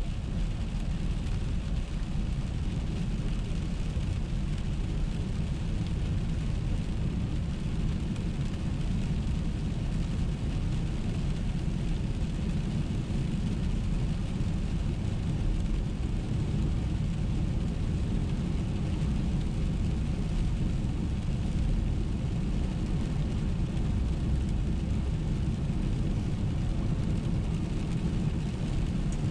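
Steady road noise heard inside a car's cabin while driving on a wet highway: a low rumble of tyres and engine with a lighter hiss above it.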